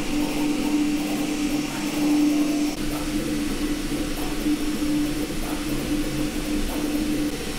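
Kingroon KLP1 CoreXY 3D printer printing at high speed: its stepper motors whine with a wavering pitch as the print head moves rapidly, over a steady hiss of cooling fans.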